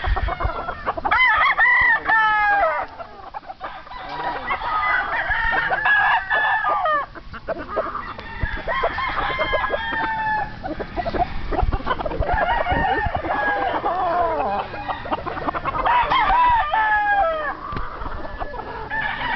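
Several young gamecocks (stags) crowing, one call after another and overlapping, with clear falling crows about a second in and again near the end.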